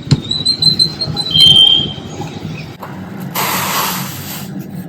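Street traffic with a high, thin squeal in the first second and a half, followed about three and a half seconds in by roughly a second of loud hiss.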